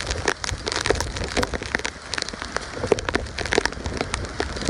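Heavy rain: a steady hiss with many separate drops striking close by as sharp, irregular ticks.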